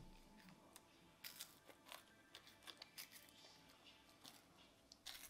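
Faint crunching and scattered small crackling clicks of a child chewing and handling crisp caramel puff snacks, with a slightly louder cluster near the end.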